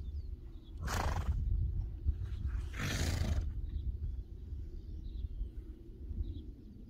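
A horse blowing out hard through its nostrils twice, each breath about half a second long, over a steady low rumble of wind on the microphone.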